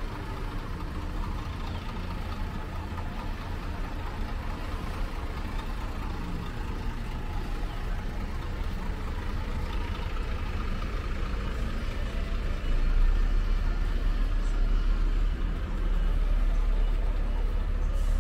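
Street ambience led by a steady low engine rumble from a vehicle, which gets louder about two-thirds of the way through, with people's voices in the background.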